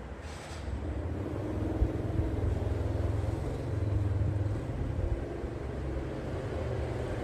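A low, steady rumble with most of its sound at the very bottom, swelling slightly in the middle, like a running vehicle.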